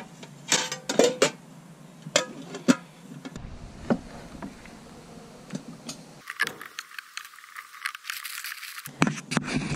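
A scattered series of sharp clicks, knocks and light rattles, as of objects being handled and set down, with the loudest knocks about a second in and again near the three-second mark.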